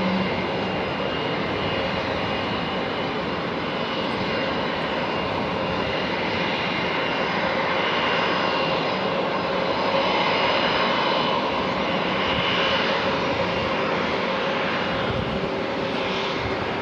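Turbofan engines of a twin-engine narrow-body jet airliner running on the runway: a steady rushing jet noise with a thin high whine on top.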